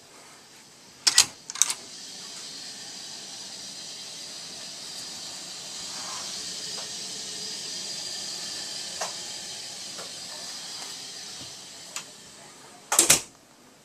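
A door latch clicks twice as a cabin bathroom door is opened, then a steady hiss runs for about ten seconds, and the door bangs shut near the end.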